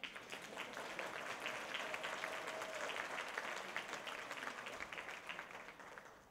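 Audience applauding, swelling to a peak and then dying away near the end.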